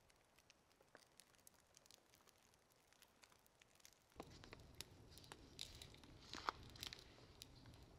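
Faint, sparse crackling and snapping of a small twig campfire just catching. About four seconds in, a steady outdoor hiss comes up, with a cluster of rustles and clicks from a rain jacket and hands handling a knife.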